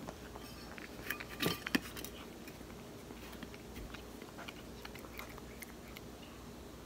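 A cat chewing and licking food from a stainless steel bowl, with small wet clicks throughout. A few sharp clinks and knocks of the bowl come between one and two seconds in.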